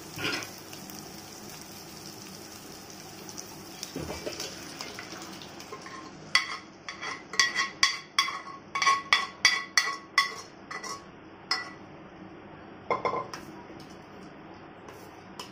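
Tempering sizzling in oil in a steel pot, then a run of sharp, ringing clinks and scrapes of a steel ladle against metal pots as cooked dal is scooped out of a pressure cooker into the tempering and stirred in.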